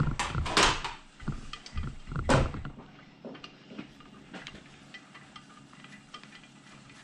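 Metal clinks and knocks of hand tools and bolts during engine reassembly: a few sharp knocks in the first couple of seconds, the loudest about two seconds in, then light scattered ticks.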